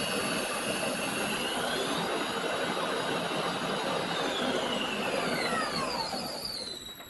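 Lathe spindle motor and gearing run from a variable-frequency drive, with a high-pitched whine. The whine climbs in pitch as the speed is turned up, holds steady, then falls as the speed is turned down, and the chuck runs down to a stop near the end.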